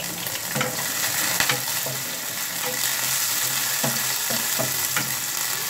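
Chopped onion and other aromatics sizzling in hot oil in a wok while a wooden spatula stirs them, with scattered scrapes and taps of the spatula against the pan. This is the sauté (gisa) of the aromatics that starts the dish.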